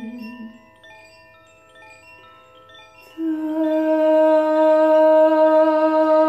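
Hand-held cylindrical wind chime tinkling, with scattered bright bell-like notes ringing out one after another. About three seconds in, a loud sustained low tone with ringing overtones sets in and holds under the chimes.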